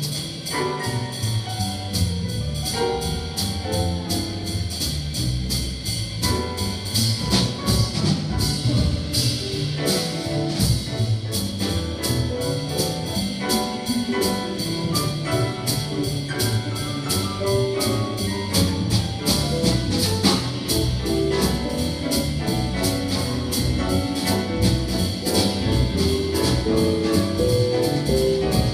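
Jazz big band playing live: brass and rhythm section over a steady beat.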